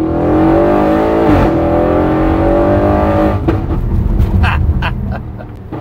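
Audi RS6 C7's 4.0 TFSI twin-turbo V8, heard from inside the cabin, accelerating hard: the revs climb, drop at a gear change about a second and a half in, climb again, then ease off a little past halfway.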